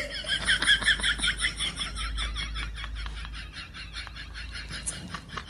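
A cat's rapid chattering trill: a fast, even run of short chirps that slowly fades away.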